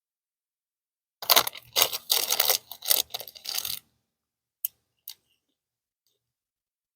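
Food packaging crinkling and rustling close to the microphone in a run of short crackly bursts lasting about two and a half seconds, followed by two brief clicks.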